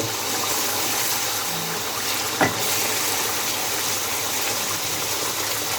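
Boneless chicken and ground spices sizzling steadily in a karahi over high flame while being fried, with a couple of short knocks from stirring.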